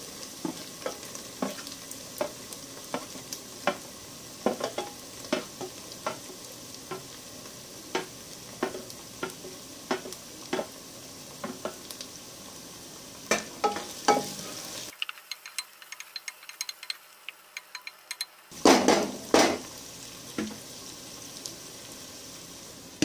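Chopped onions and tomatoes sizzling in hot oil in a non-stick pot, with a wooden spoon stirring and knocking against the pan in many short clicks. The frying drops away for a few seconds about two-thirds through. Two louder knocks follow, then the sizzle resumes.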